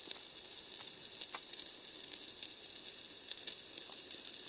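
Fire burning in and around a fireproof LiPo safe bag: a steady hiss with a few faint crackles.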